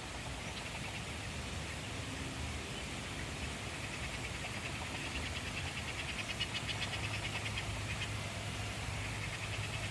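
A rapid pulsing trill from an animal call, building from a few seconds in and fading near the end, over a steady outdoor background.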